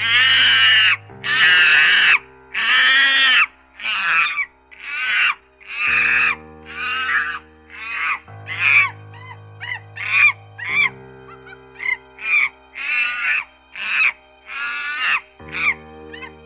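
A bonobo giving a string of loud, high-pitched calls, about one a second, the first three longer than the rest, over background music with sustained chords.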